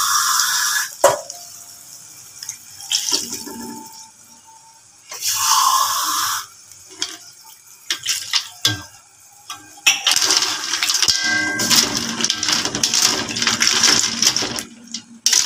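Water poured into a metal wok of broth, in two pours: one at the start and one about five seconds in. From about ten seconds in a metal ladle stirs the broth and clinks and scrapes against the wok.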